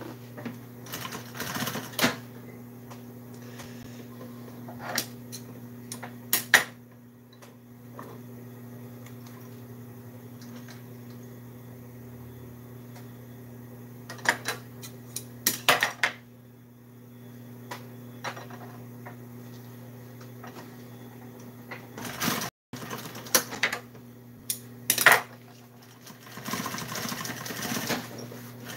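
Industrial sewing machine with its motor humming steadily, and scattered clicks and clacks as the vinyl and machine are handled. The machine starts stitching about two seconds before the end.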